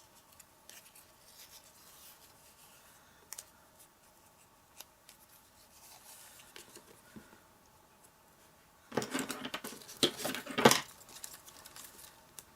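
Close-up paper-craft handling: quiet rustles and light ticks as baker's twine is wound round a small cardstock piece, then about nine seconds in a couple of seconds of louder scraping and rustling with sharp clicks.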